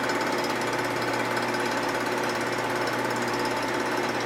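Vertical milling machine running steadily as an end mill takes a very light cut in a 1947 Harley-Davidson knucklehead crankcase, which is fed round on a hand-cranked rotary table. The cut is throwing almost no chips, the sign of a fine finishing pass.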